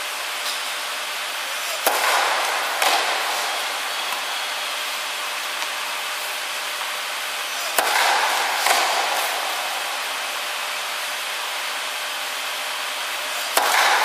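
Tennis ball struck by a racket and bouncing on an indoor hard court: five sharp pops in three groups a few seconds apart, each trailing off in the hall's echo, over a steady background hiss.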